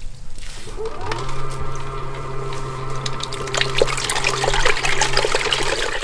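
Moyu portable folding washing machine agitating a small load in soapy water: water churning and splashing over a steady electric motor hum. The motor hum is absent at first, starts up with a brief rise about a second in, and cuts out near the end.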